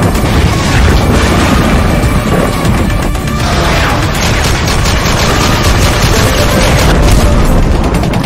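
Loud action-style intro music laid with sound effects: booms, gunfire and crashing, dense and continuous.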